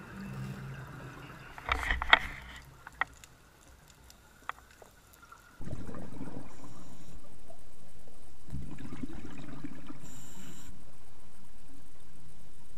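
Underwater sound from a scuba dive. Background music fades out, with a few sharp clicks. From about halfway, the bubbling rumble of exhaled regulator bubbles comes twice, with a brief hiss of an inhalation between them.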